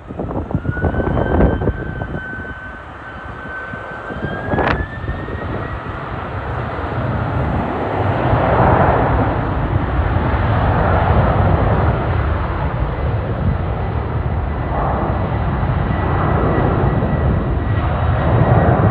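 Jet airliner engines: a whine that rises in pitch over the first few seconds and then holds steady, with a heavy rumble that builds and stays loud. A couple of short knocks sound in the first five seconds.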